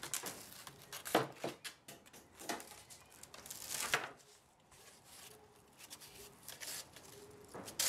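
Foam and the thin aluminium templates being handled: a few short rustling, scraping bursts, the longest a little before the halfway point.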